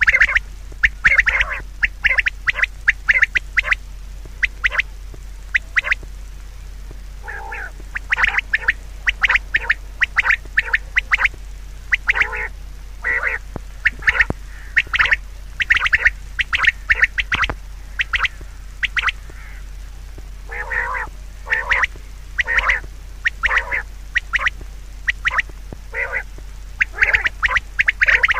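An animal calling over and over: short calls, several a second, in runs separated by brief pauses.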